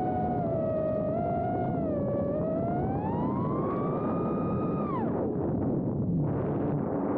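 Onboard sound of a 4-inch FPV quadcopter's brushless motors and tri-blade props whining. The pitch wavers, then climbs steadily as the throttle goes up. Just after five seconds it drops off steeply as the throttle is cut for a dive, leaving a rushing noise of air and prop wash.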